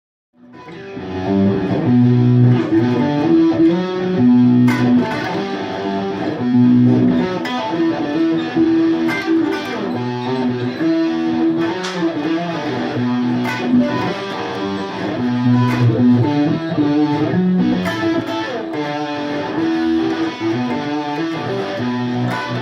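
Guitar playing a repeating riff of held chords and bass notes, coming in during the first second.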